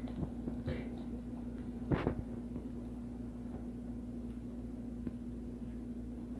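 Slime being handled and kneaded: a few faint clicks and one louder squish about two seconds in, over a steady low hum.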